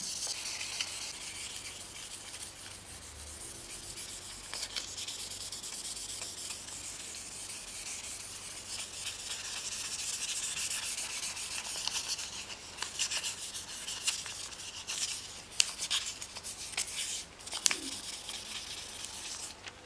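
Fine 3000-grit sandpaper rubbed back and forth by hand over an olive-oiled walnut knife handle: a steady scratchy hiss, with separate strokes standing out more sharply in the second half.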